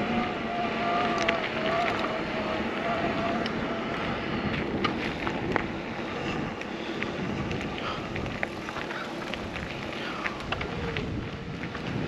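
Riding an e-mountain bike: tyre and frame rattle, many small clicks and knocks, and wind on the microphone. A faint wavering whine, typical of the electric drive motor, runs through the first few seconds.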